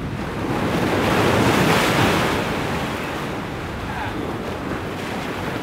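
Ocean surf breaking and washing over jetty rocks, one wave surging to its loudest about two seconds in and then settling back to a steady wash.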